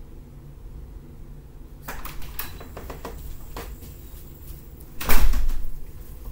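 Front door being opened with a few latch clicks, then shut with a loud bang about five seconds in.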